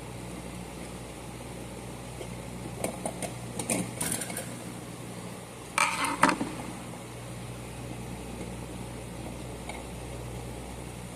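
Hand-tool work clicks: a few light clicks and taps about three to four seconds in, then a short louder clatter around six seconds in, over a steady low hum.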